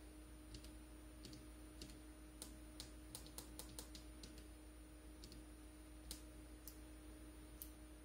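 Faint clicks of small tactile push buttons being pressed on a breadboard, about fifteen of them, with a quick run of presses around three to four seconds in, over a faint steady hum and a thin high whine.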